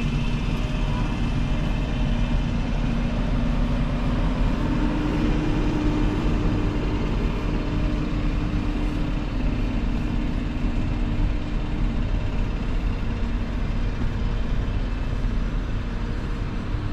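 Steady low rumble with a faint hum from a train standing at a railway platform, the hum swelling about four seconds in and fading after about twelve seconds.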